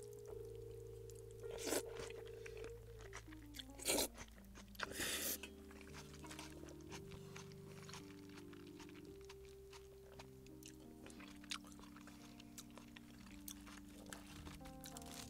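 Crunchy bites and chewing of crisp fried food, likely the battered pork of tangsuyuk. The loudest crunches come about 2, 4 and 5 seconds in, over soft background music with long held notes.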